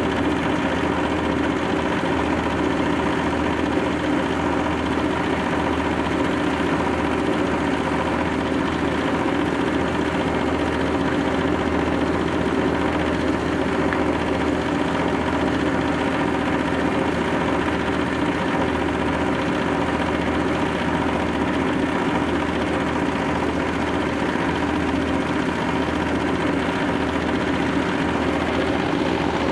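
Rice-husk bran grinding machine running steadily under load, grinding husks into fine bran: an even, unbroken machine hum with grinding noise over it.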